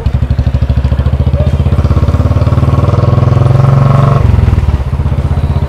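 Royal Enfield motorcycle engine running under way, its exhaust pulsing steadily; it builds up as the throttle opens, then drops off sharply about four seconds in as the throttle closes.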